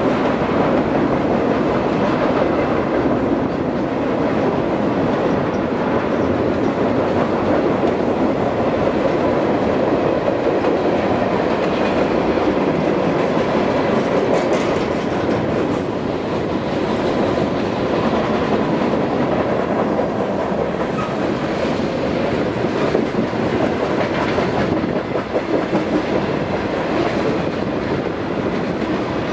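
Freight cars of a long mixed freight train rolling past: a steady, even rumble of steel wheels on the rails with a clickety-clack.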